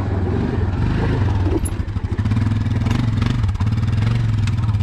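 Yamaha Grizzly 700 ATV's single-cylinder four-stroke engine running at low revs as the quad manoeuvres slowly, its note rising and falling a little with the throttle.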